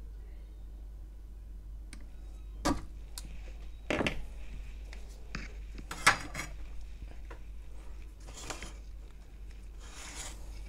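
A few sharp metallic clinks and knocks as the heavy 150 W soldering iron is lifted off the soldered battery post and put down, the loudest about six seconds in. Two short rustles follow near the end as a gloved hand handles the circuit board.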